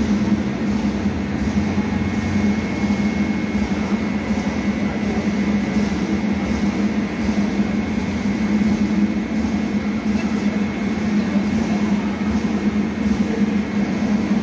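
Large drum-type industrial fan running close by: a steady drone with a strong low hum and a faint, thin high whine.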